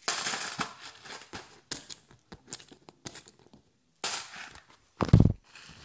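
Loose 50p coins clinking and clattering as they are handled and set down, a run of sharp metallic clicks. About five seconds in comes a louder dull thump.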